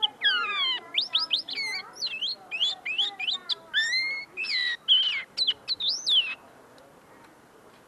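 Common linnet singing a rapid twittering song of quick up-and-down whistled sweeps and trills, which stops about six seconds in. Its song is not yet fully polished: the bird is still clearing up its notes.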